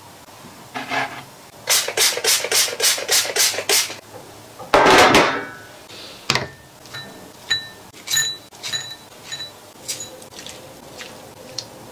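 Kitchen preparation sounds: a quick, even run of about ten knocks, a short loud rush, then light clicks and clinks of utensils against a ceramic bowl, some with a brief high ring.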